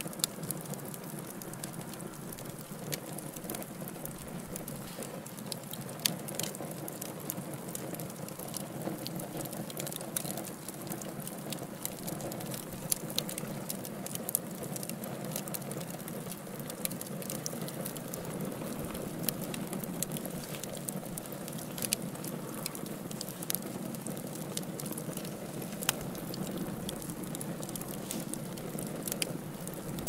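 Fireplace fire crackling, with frequent small pops and a few louder snaps over a steady low rush of flame.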